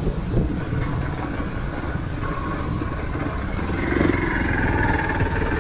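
Hero Xpulse 200 4V single-cylinder motorcycle running steadily while being ridden, a dense low rumble with a faint higher whine that comes in about two seconds in.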